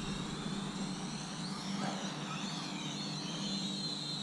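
FLYMAX 2 toy quadcopter's small motors whining in flight. Several high tones rise and fall together as it manoeuvres.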